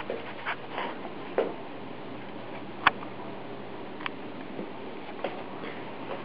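A few light clicks and taps at irregular intervals over a steady hiss, with one sharper click about three seconds in.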